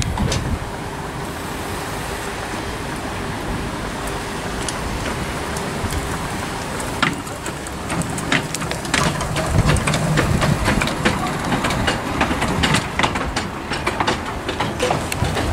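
Miniature steam locomotive and its train moving past close by: a steady rumble, and from about halfway through a run of sharp clicks and knocks from the wheels on the track.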